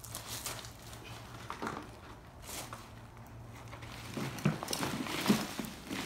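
Shovel digging out a small lemon tree: the blade scrapes and thuds into dirt and gravel in scattered strokes, with a few harder strikes about four to five and a half seconds in.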